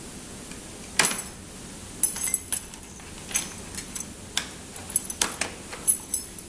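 Weider WL-9200T-HK mortise hook lock operated by hand and key: one sharp metallic click about a second in, then a quick run of clicks and clacks as the latches are pressed and the hook bolt is thrown and withdrawn.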